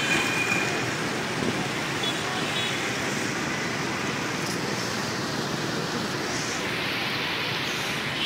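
Steady road and traffic noise heard while moving along a busy city street among motorbikes and cars.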